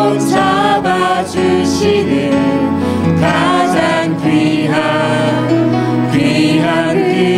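A praise team of men's and women's voices singing a slow worship song together over amplified microphones, with sustained, held notes over a steady instrumental accompaniment.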